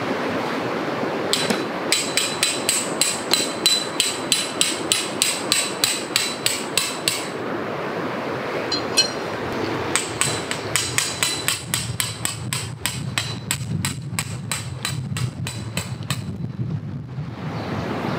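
Tent pegs being hammered into the ground: rapid, evenly spaced metallic strikes that ring, about four a second, in two runs with a pause near the middle, the second run quicker. A steady rushing noise runs underneath.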